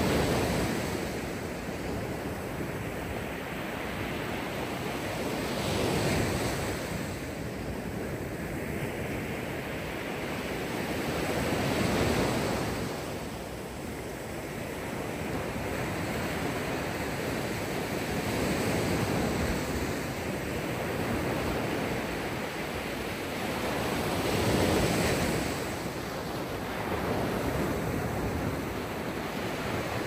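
Mediterranean Sea surf: waves breaking and washing in, the sound swelling and easing about every six seconds.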